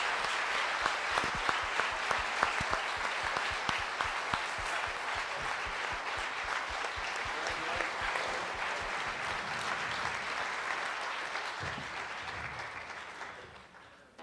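Congregation applauding, a dense steady clapping that thins and dies away over the last two or three seconds.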